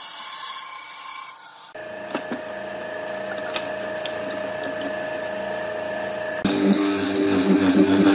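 A band saw cutting through a pine board, then after a brief break a benchtop hollow-chisel mortiser's motor running steadily. It grows louder about six seconds in as the chisel bites into the wood.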